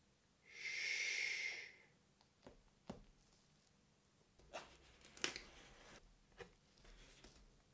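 A gloved hand rubbing across the front of a cardboard keyboard box: a rubbing swish with a steady squeak in it, lasting a little over a second. A few light taps and knocks follow as the box is handled and shifted.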